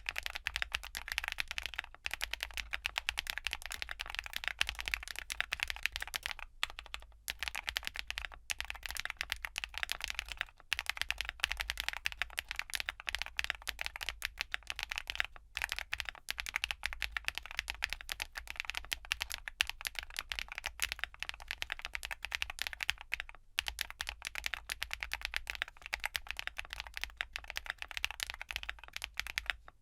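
Continuous fast typing on a QwertyKeys QK75 gasket-mount custom mechanical keyboard with GEON Black linear switches, polycarbonate plate and Domikey Vintage keycaps: a dense run of slightly clacky keystroke clicks, broken by a few brief pauses.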